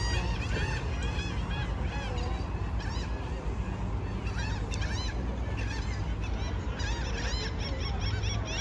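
A large flock of birds calling all at once: many short, overlapping calls without pause, over a steady low rumble.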